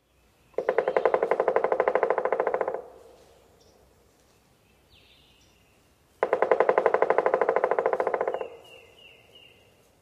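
Pileated woodpecker drumming: two rolls of rapid strikes on wood, each about two seconds long, strong and loud but fading slightly at the end.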